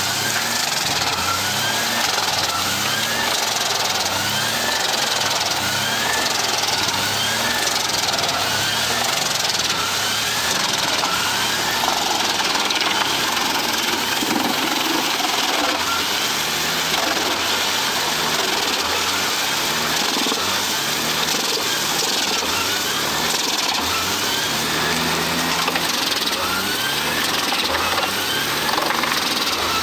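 Crane-fed mobile wood chipper running under load, chipping whole tree trunks with a steady loud mechanical noise. A short rising whine recurs about every second and a quarter.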